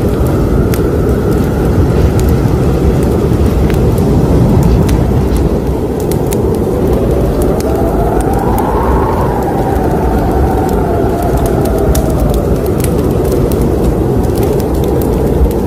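Fire burning in a fireplace: a steady low rumble of flames with frequent sharp crackles, and a faint whine that rises in pitch and then falls away around the middle.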